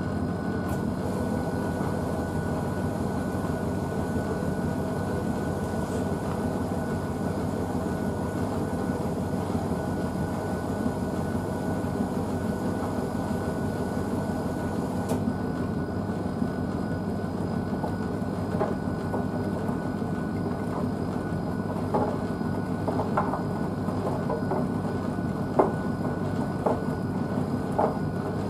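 Blomberg WNF9448 front-loading washing machine mid-wash, its drum turning a wet dog blanket through water with a steady motor hum and a faint high whine. Short, sharp knocks come now and then in the last third.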